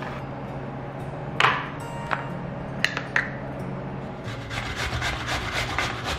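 Raw potato being grated on a flat metal hand grater: rhythmic rasping strokes, about four or five a second, starting a little over four seconds in. Before that, a few light clicks and knocks of small plastic lunchbox containers being handled.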